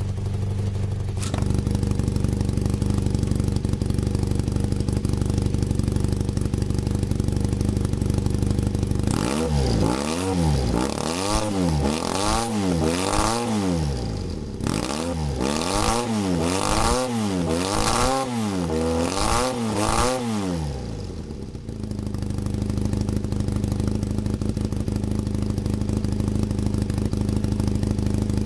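Honda CB400D Super Hawk III parallel-twin engine running on near-straight exhaust pipes with the silencers off: a steady idle, then about ten quick throttle blips over some twelve seconds, each rev rising and falling, before it drops back to idle.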